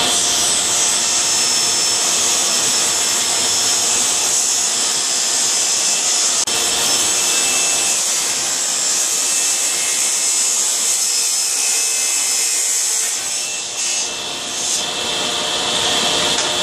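Delta table saw running and ripping thin sheet stock along the fence, the blade cutting steadily through the panel. The sound eases briefly about three-quarters of the way through.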